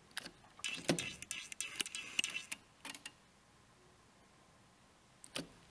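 Handling noise: rustling and a quick run of small clicks and knocks for about three seconds, then a pause, then a couple of clicks near the end.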